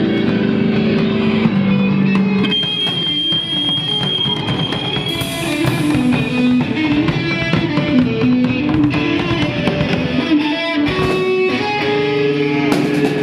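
Live rock band playing loud: electric guitars over a drum kit, with a high guitar note held for a couple of seconds about two and a half seconds in.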